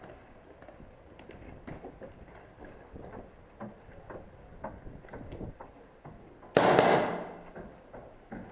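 A quick string of paintball marker shots fired up close, a loud half-second burst of rapid popping that tails off, about two-thirds of the way in. Before it, scattered sharp clicks and knocks from the player's movement and gear.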